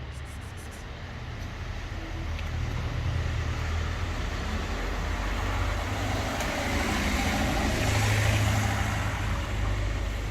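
Road traffic: a steady low rumble, with a vehicle passing that is loudest about eight seconds in.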